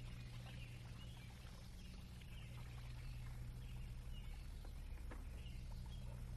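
Quiet background: a faint steady low hum and hiss, with a few faint soft rustles.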